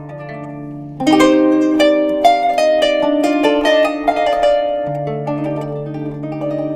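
Kanun, the Turkish plucked zither, played solo: a few softer held notes, then about a second in a louder run of quick plucked notes with ringing strings.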